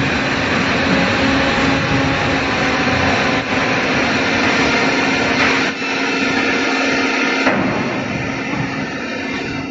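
Injection moulding production line running: a dense mechanical noise over a steady hum. The low rumble eases off about six seconds in and again near eight seconds.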